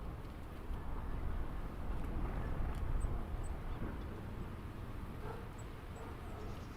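Low, steady engine rumble from passing traffic or an aircraft, swelling a little about two to three seconds in, with a few faint high chirps over it.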